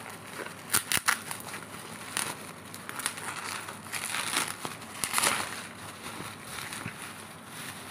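Black plastic bubble wrap crinkling and crackling as hands unwrap a parcel, with a few sharp crackles about a second in and a longer, louder rustle around five seconds in.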